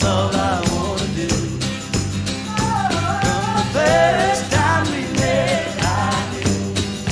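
A 1970s pop song playing: voices singing over a steady beat and bass line.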